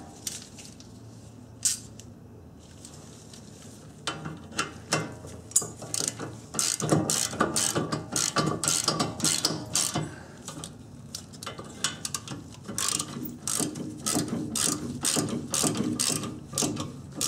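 Half-inch drive ratchet clicking in rapid runs as the caliper bracket-to-knuckle bolts are run in and snugged, starting about four seconds in.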